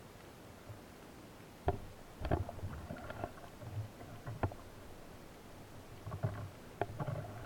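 Underwater handling noise from a speargun and its shaft: several sharp clicks and knocks, with dull low thuds in between, as the gun is handled with a speared octopus on the shaft.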